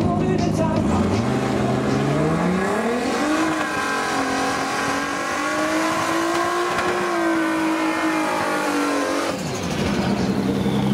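Pro Street class drag car doing a burnout: the engine revs climb steeply about a second in and hold high for several seconds while the rear tyres spin and squeal, then drop off near the end.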